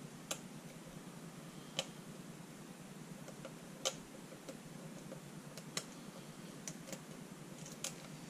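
Lock pick and tension wrench working the pins of a pin-tumbler challenge lock: a scattering of small, sharp metallic clicks at irregular intervals, the loudest about four seconds in, as the pins are pushed and set while the lock sits in a false set.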